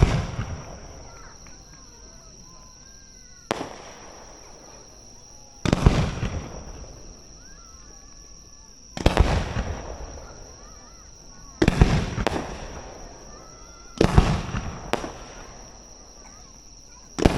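Aerial fireworks shells bursting, a sharp bang every two to three seconds, each trailing off in a rolling echo that fades over a second or two. Near the middle and again toward the end, two bursts come in quick succession.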